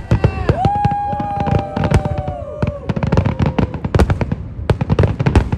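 Fireworks going off in quick succession: a dense run of sharp bangs and crackles. About half a second in, two steady whistles start one after the other and hold for about two seconds each.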